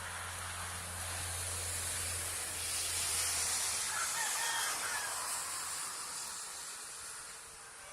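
A rushing noise that swells to its loudest about three seconds in, then fades. A low hum under it stops about four seconds in, and a few faint short calls come through near the middle.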